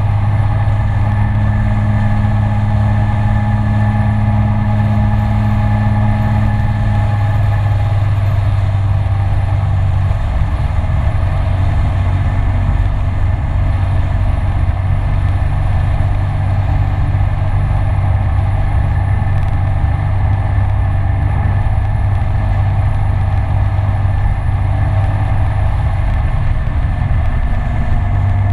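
Dafra Citycom S 300i scooter's single-cylinder engine running steadily at cruising speed, a constant drone with wind and road noise rumbling underneath. A higher hum in the drone drops away about seven seconds in.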